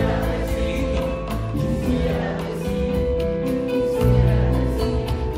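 Live band music from a Latin American song's instrumental passage: one long held note over a changing bass line and light percussion.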